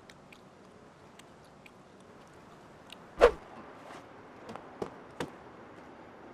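A single hard thump about three seconds in, with a short ring after it, followed by a few lighter knocks, over a quiet steady hiss.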